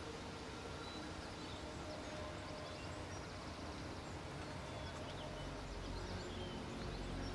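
Outdoor ambience: a steady low hiss with scattered faint bird chirps. Near the end a low, sustained musical sound swells in as the score begins.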